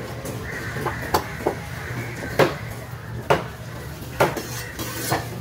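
Large knife scraping scales off a snapper on a wooden board: sharp scraping strokes roughly once a second, the loudest three in the middle.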